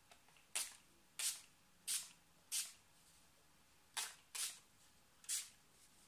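A hand swiping and dabbing across wet watercolour paper: seven short, crisp swishes at uneven intervals.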